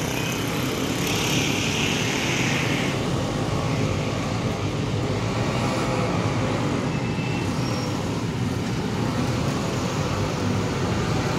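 Steady street traffic noise: a continuous low rumble of passing vehicles, with a brief hiss about a second in.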